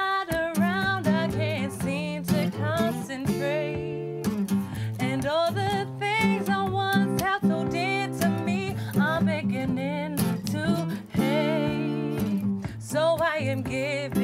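Acoustic guitar strummed under a singer's melodic runs with vibrato, a live R&B-style song.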